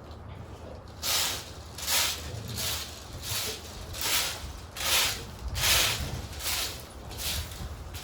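Broom sweeping the ground in regular strokes, about one every 0.8 seconds, starting about a second in.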